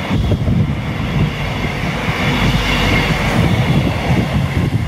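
Passenger train running past along the platform close by: a steady rumble of wheels on rail, with a higher rushing sound that is loudest about two to three seconds in.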